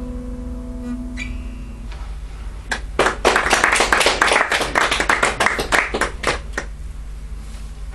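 An acoustic guitar's last strummed chord ringing out and fading, then a small audience applauding for about four seconds before the clapping dies away.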